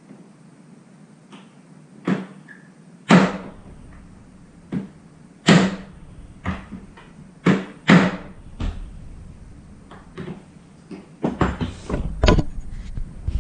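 Pelican Air 1535 case latches being worked, a string of about a dozen sharp plastic clacks and snaps at uneven intervals.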